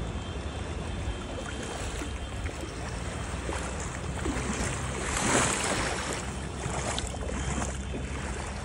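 Floodwater sloshing and washing, with a louder swell about halfway through.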